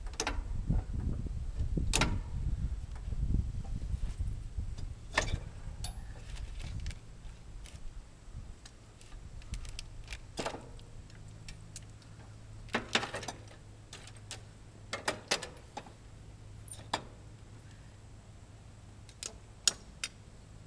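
Scattered metallic clicks and clanks of tools and parts being handled while a lawnmower is taken apart. A low rumble runs under the first several seconds, and a quick cluster of clicks comes near the end.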